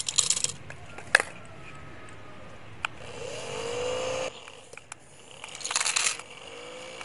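Sunflower seeds rattling into a homemade drink-can gadget. Its small electric motor spins up with a rising whine about three seconds in and cuts off suddenly, then runs again with a steady whine near the end, turning a small fan.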